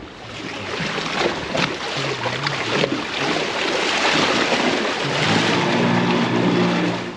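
Small boat's outboard motor running under way, with wind on the microphone and rushing water. The sound builds over the first few seconds, and the engine's steady low tone stands out in the second half.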